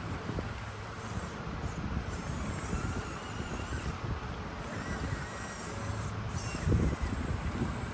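Small electric RC off-road truck's motor and gears running as it crawls over rough ground, with a steady low rumble and a knock about seven seconds in.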